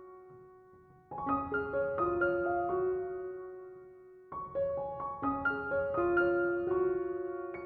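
Background piano music: phrases of single struck notes that ring and die away, with the sound fading nearly out before a new phrase begins about a second in and again about four seconds in.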